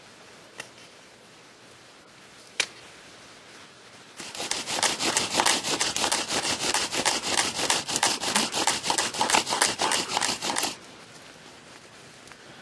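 Bow drill at work: an incense cedar spindle spun back and forth on a fireboard, a fast even run of loud rubbing strokes, about six a second, starting about four seconds in and lasting some six seconds. A couple of small knocks come before it.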